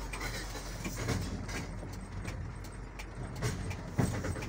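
Heavy truck running on a rough dirt track, heard from inside the cab: a steady low engine hum with the cab clicking, rattling and knocking over the bumps, and a sharper knock about four seconds in.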